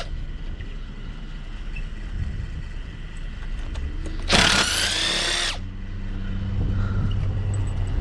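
Power drill spinning up and running for about a second, backing out a screw, about four seconds in; a low hum underneath.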